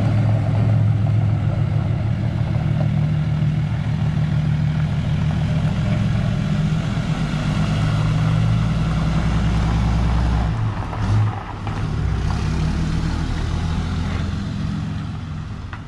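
Heavy-duty pickup truck's engine running as it pulls a loaded enclosed car trailer away over gravel, a steady low engine note that fades over the last few seconds as the truck moves off.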